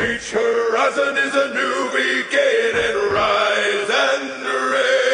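Music with chanting voices over a steady held tone.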